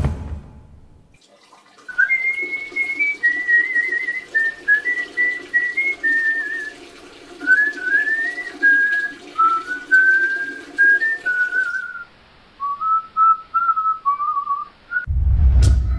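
A man whistling a meandering tune while urinating into a toilet; the splashing of the stream runs under the whistling and stops about three-quarters of the way through, while the whistling goes on a little longer. A whoosh sound effect with a low rumble opens and closes the passage.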